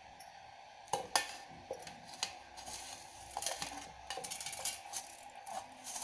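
Steel plate knocking and scraping against the rim and inside of a stainless-steel mixer-grinder jar as ingredients are tipped in: a few sharp clinks about a second in, then a run of rattling scrapes past the middle.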